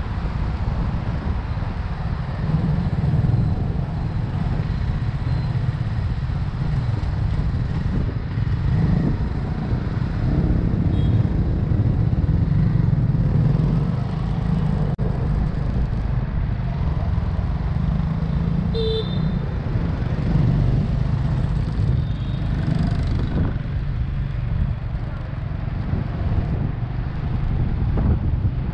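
Riding a motorbike through city street traffic: a steady low rumble of wind buffeting the microphone and engine noise, with other vehicles around. There is a short horn toot about two-thirds of the way in.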